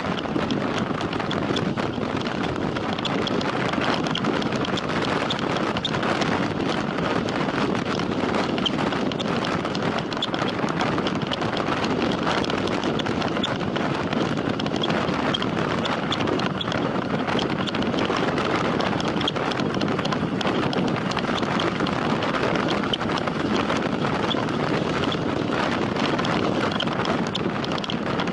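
Steady wind noise rushing over the microphone of a camera riding on a time-trial bicycle at race speed, with faint small ticks running through it.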